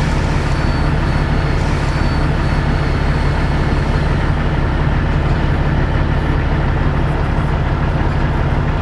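Semi truck's diesel engine running steadily with a deep, even rumble.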